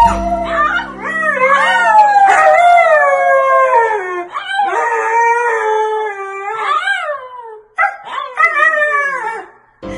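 A husky howling in a string of long calls that rise and fall in pitch, with a short break about eight seconds in.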